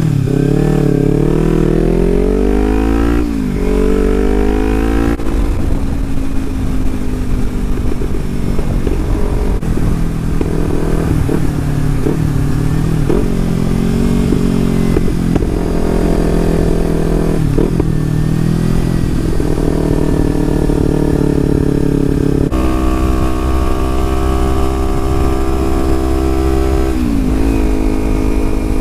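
Kawasaki Ninja 300's parallel-twin engine pulling hard: its pitch climbs, drops sharply about three seconds in as at a gear change, and climbs again. It then runs at varying speed, holds a steadier higher note in the last quarter and falls away shortly before the end.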